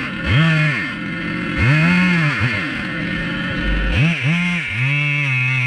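Husqvarna chainsaw engine revved in repeated throttle bursts, its pitch swinging up and falling back about once a second, then holding a steadier, slightly wavering note near the end.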